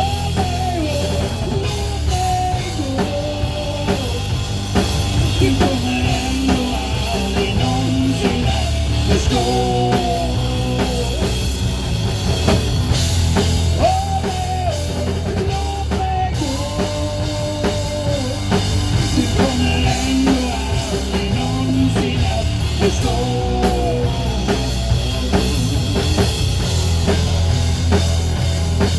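Rock music with a drum kit, bass and a melody line of held, sliding notes, without sung words: an instrumental passage.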